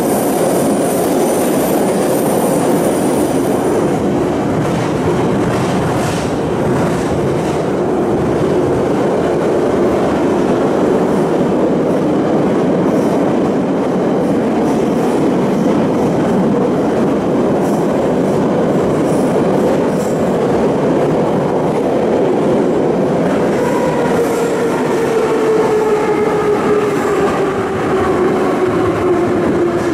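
Inside a running 81-717/714.5A metro car: steady loud rumble of wheels and running gear on the track, with a thin high whine in the first few seconds. About three-quarters of the way through, the electric traction motors' whine comes in and falls steadily in pitch as the train slows for the station.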